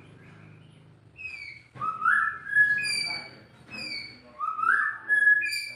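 White-rumped shama (murai batu) singing: two similar clear whistled phrases, each sliding up and then holding a note, with higher notes laid over them.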